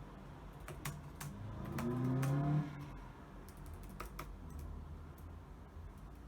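Computer keyboard typing: scattered, irregular keystrokes. A low hum that rises slightly in pitch comes in about one and a half seconds in and is the loudest sound for about a second.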